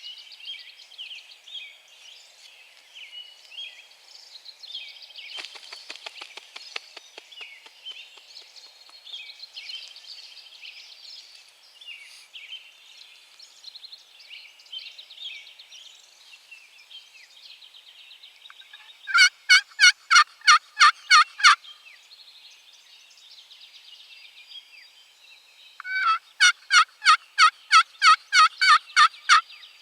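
Two loud runs of hen turkey yelps from a hunter's turkey call, about eight sharp notes and then about a dozen at three to four a second, calling to gobblers. Songbirds sing faintly behind.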